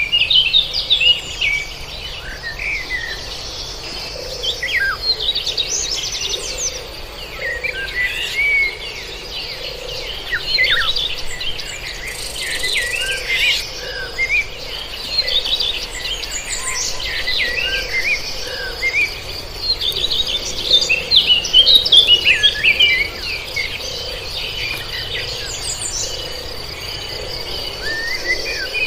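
Several birds singing and calling over one another in quick chirps and warbles, with a steady high insect trill underneath.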